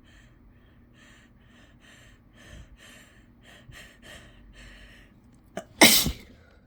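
A person's quick catching inhales, about three a second, building up to a sneeze. Near the end comes one loud sneeze.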